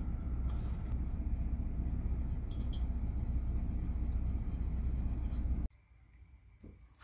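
Wind rumbling and buffeting on the microphone, a steady low roar with a few faint clicks, cut off suddenly about five and a half seconds in, leaving only a quiet background.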